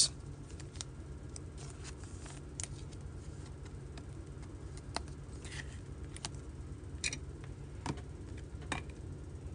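Baseball trading cards being handled, giving faint, irregular clicks and short soft slides every second or so over a low steady hum.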